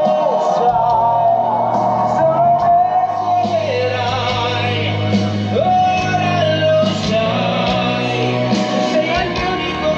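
Music with singing: a voice holding long notes that now and then slide down, over a steady bass line.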